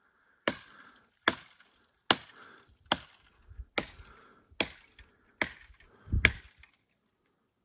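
Eight evenly spaced chops into mesquite wood with a hand tool, about one every second, the last landing a little after six seconds in with a heavier thud.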